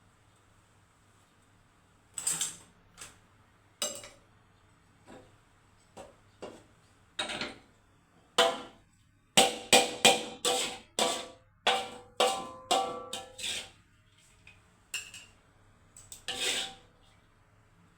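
Irregular sharp clinks and knocks of kitchenware being handled, some ringing briefly. They come in a quick flurry in the middle, with scattered single knocks before and after.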